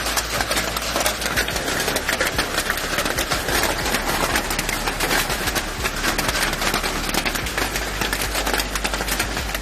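Hail pelting down heavily: a dense, continuous clatter of many rapid stone impacts.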